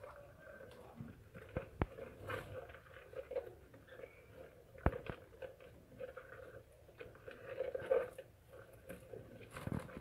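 Faint scratching, rustling and scattered sharp clicks from budgerigars shifting about in a wooden nest box lined with wood shavings, as the hen moves over her chicks.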